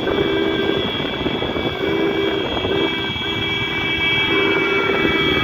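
Many motorcycle engines running in a moving pack, with a two-note tone that sounds on and off several times.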